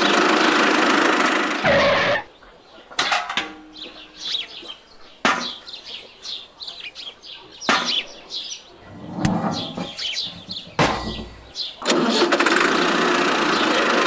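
A toy tractor's small motor running with a dense, steady buzz. It cuts off about two seconds in and starts again about two seconds before the end. In the quiet between, birds chirp and there are a few sharp clicks and knocks.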